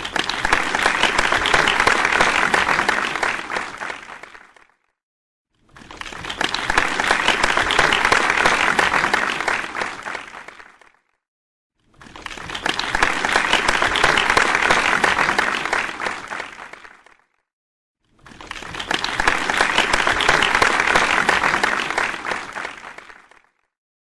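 Applause, dense clapping from many hands, in four separate rounds. Each round lasts about five seconds, swelling up and fading away, with about a second of silence between rounds.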